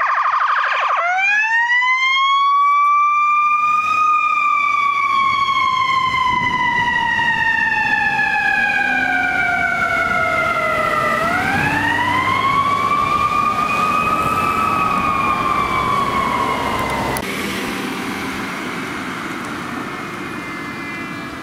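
Electronic siren of a fire-department rescue ambulance responding code 3. It changes from a fast yelp to a slow wail in the first second, rises and falls twice as the ambulance passes and drives off, then cuts off suddenly a few seconds before the end. Road and traffic noise remain after it, with a faint second siren tone near the end.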